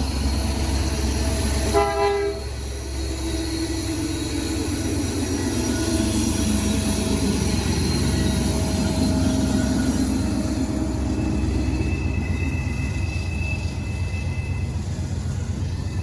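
BNSF train passing with its diesel locomotives running: a steady heavy rumble, with a short horn blast about two seconds in. Thin high squealing tones come in for the last few seconds.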